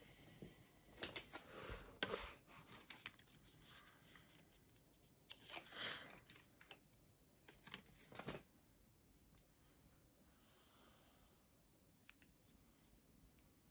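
Mouth tape peeled from its backing and pressed over the lips, heard as a few short, faint bursts of peeling and handling noise a few seconds apart, with small clicks near the end.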